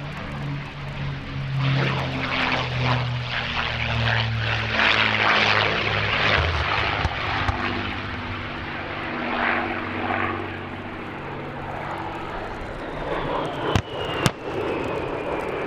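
Piston engines of the XP-82 Twin Mustang running in flight: a propeller drone whose low engine note shifts in pitch and swells with rushing noise as the aircraft passes, then fades. Two sharp clicks come near the end.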